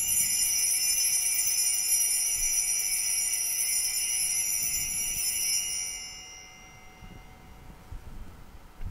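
Altar bells shaken at the elevation of the chalice during the consecration at Mass: a high, bright jingling that starts suddenly, holds for about five seconds and dies away about six seconds in.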